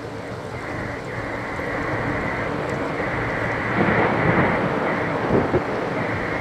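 Gusty wind buffeting a phone's microphone under a funnel cloud, getting stronger with rough gusts from about four seconds in.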